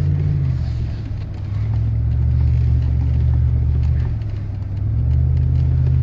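Range Rover V8 engine and drivetrain heard from inside the cabin while driving: a steady low rumble whose level dips briefly twice, about a second in and again past four seconds.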